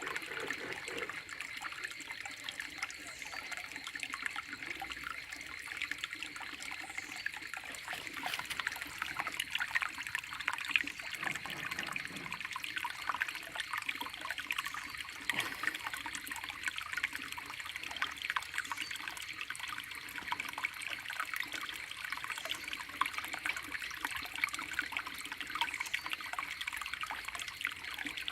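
Shallow stream water flowing and trickling steadily, a continuous burble with many small splashes.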